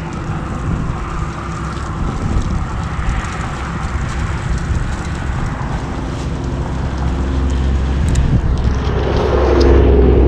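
Steady rumble of passing motor traffic mixed with wind on the microphone. It swells near the end as a vehicle with a low engine hum goes by.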